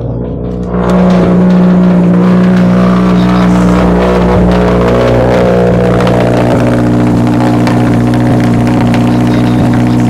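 2022 Subaru WRX's turbocharged 2.4-litre flat-four idling steadily on its quad-tip exhaust shortly after a cold start, loud. It gets louder about a second in.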